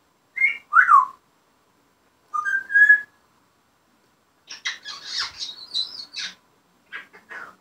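African grey parrot vocalising: two short whistles, the first falling and the second rising, then from about halfway a broken run of chattering squawky sounds.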